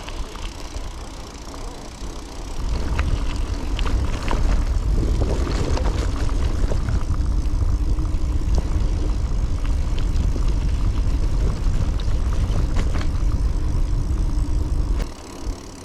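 Wind buffeting the microphone of a moving bicycle as a low, loud rumble, with a few light clicks and rattles from the bike over bumps. The rumble builds a couple of seconds in and drops off about a second before the end.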